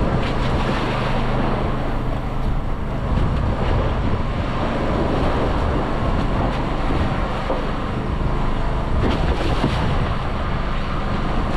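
Boat at sea: a steady engine drone, with wind buffeting the microphone and sea water washing against the hull.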